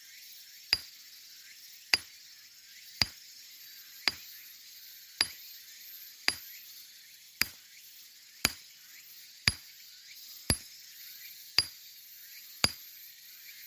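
Geologist's rock hammer striking andesite stone: twelve sharp, ringing clinks at an even pace of about one a second.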